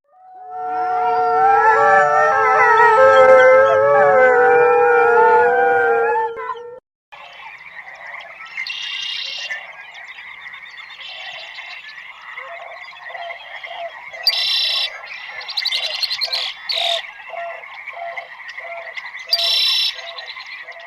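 A chorus of animal howls, many overlapping calls gliding up and down, lasting about seven seconds and stopping abruptly. After a brief gap comes a night chorus of frogs: a steady high trill with croaks repeating about twice a second, and a few louder calls breaking in near the end.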